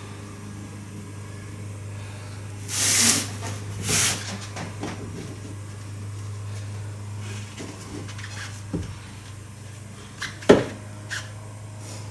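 Handling noise from fitting a wooden speaker plate: two brief scrapes a few seconds in, a few light taps, and one sharp knock near the end, over a steady low hum.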